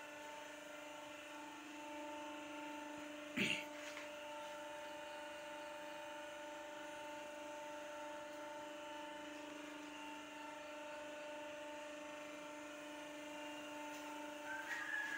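Steady, faint machine hum, a few even tones held level, from the areca-leaf plate-pressing machinery running in the workshop. A single sharp knock comes about three and a half seconds in, and a few clicks near the end.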